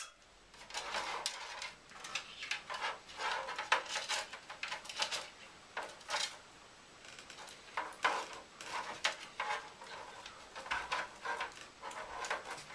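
Handling noise from a Fractal Design Node 304 mini-ITX PC case: irregular light clicks, knocks and rustles as its insides and cables are handled.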